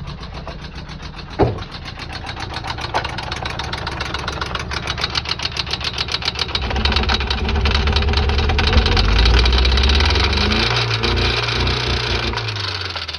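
VAZ-2112 engine running with a heavy rhythmic knock. The knocks come faster as the engine is revved up in the second half, then it drops back near the end. The owner takes the knock for the death of the engine.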